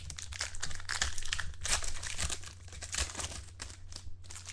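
Trading-card pack wrapper and cards being handled, crinkling and rustling in quick, irregular crackles over a low steady hum.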